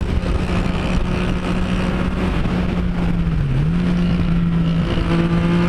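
Motorcycle engine running steadily at road speed with wind rush; its pitch dips briefly and recovers about three and a half seconds in.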